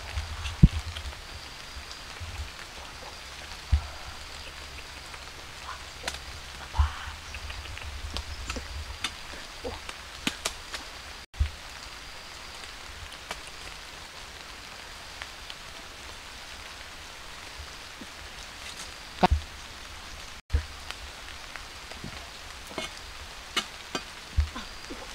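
Scattered sharp clicks, snaps and rustles of fruit clusters being pulled off a tree's branches, with a few soft thumps, over a steady outdoor hiss.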